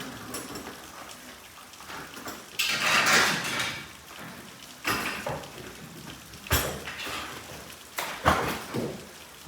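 Installation work on garage door panels and hardware: a long scraping, sliding noise about three seconds in, then several sharp metallic clanks and knocks.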